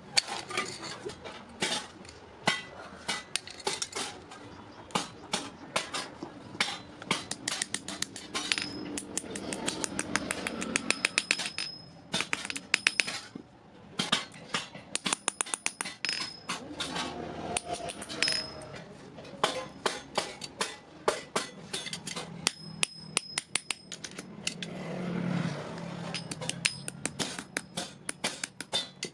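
Hammer blows on iron, struck in quick runs of rapid strokes with short pauses between, several strikes ringing with a high metallic tone.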